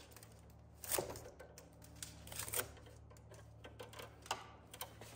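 Faint scattered clicks and light rustling as the bare copper ground wire of a freshly stripped electrical cable is pulled out and handled in gloved hands, with a sharper click about a second in and again near the middle and later. A steady low hum lies underneath.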